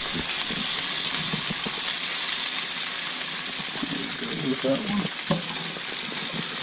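Thick horse-eye jack steaks sizzling steadily in hot olive oil in a frying pan. A spatula scrapes and taps against the pan a few times as the steaks are lifted out.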